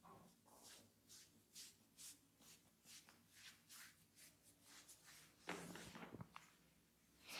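Hands working over a head during an oil head massage: soft rubbing strokes about two a second, with one longer, louder stroke about five and a half seconds in.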